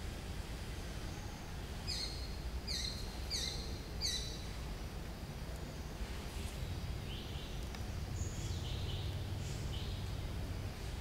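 Outdoor ambience with birds calling: about two seconds in, a run of four quick, evenly spaced descending calls, then softer scattered chirps later on, over a steady low rumble.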